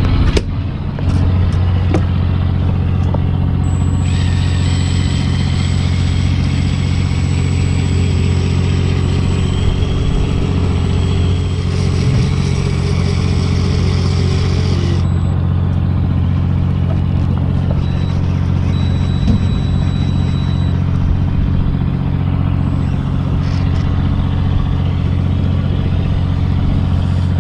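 Fishing boat's engine running steadily, a deep hum. From about four seconds in to about fifteen seconds, a higher hiss with a thin whine over it joins.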